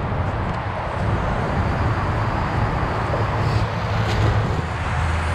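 Electric radio-controlled cars running across grass, heard over a steady low rumble.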